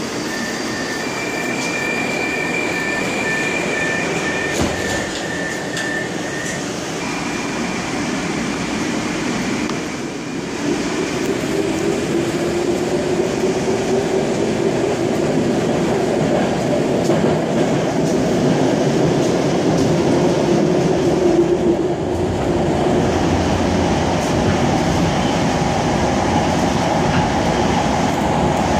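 Moscow metro 81-765 'Moskva' train car running, heard from inside the car: a steady rumble of the wheels on the rails. Two thin high tones are held through the first few seconds. From about a third of the way in, a whining tone slowly rises in pitch as the noise grows louder.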